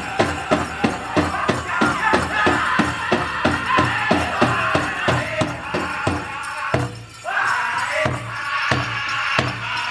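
Powwow drum and singers performing a men's chicken dance song: a big drum struck in a fast, even beat of about three strokes a second under high-pitched group singing. The drum breaks off for a moment about seven seconds in, then comes back at a slower beat while the singing carries on.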